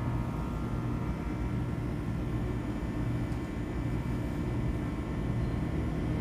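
Steady low mechanical hum with faint, thin high tones above it, unchanging throughout; no distinct separate sounds stand out.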